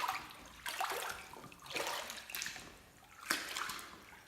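Rubber boots wading through a few inches of standing floodwater, a splashing slosh with each step, about once a second.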